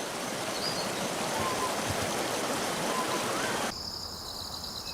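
A steady rush of running water with a few faint bird chirps. Near the end it cuts abruptly to a steady high insect chorus of crickets trilling.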